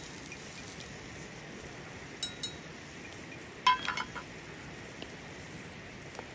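Light clinks of hard metal or glass camp cookware being handled: two small clinks about two seconds in, then a quick cluster of ringing clinks just after the middle. A steady hiss runs underneath.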